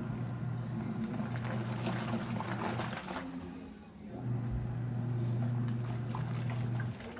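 Seagull (HaiOu) washing machine agitating a load of towels: the motor hums steadily while the water sloshes. The motor stops briefly about four seconds in, then starts again.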